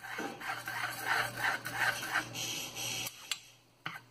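Black spatula scraping and stirring vegetables and sauce in a stainless steel frying pan, working the seasoning sauce in. It is a rhythmic run of scraping strokes, about two or three a second, that stops about three seconds in, followed by a couple of light taps.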